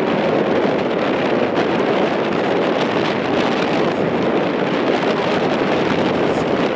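Steady wind blowing across the microphone, a continuous even rush that does not let up.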